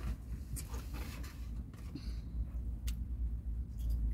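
Low steady rumble inside a parked car, with a few faint clicks and rustles from handling a piece of fried chicken, which is bitten into near the end.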